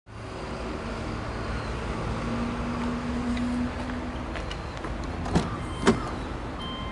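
Car door being unlatched and opened: two sharp clunks about half a second apart, near the end, over a steady low background hum.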